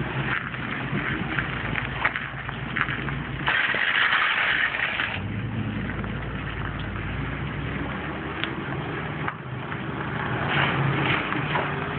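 Tow truck engine running as the truck pulls away with a pickup in tow. A hissing burst about three and a half seconds in lasts a second or so.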